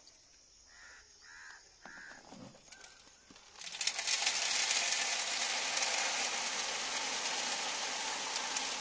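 Maize seed pouring from a pan into a seed drill's metal seed box: a steady rushing rattle of kernels that starts about four seconds in. Before the pour, a crow caws three times.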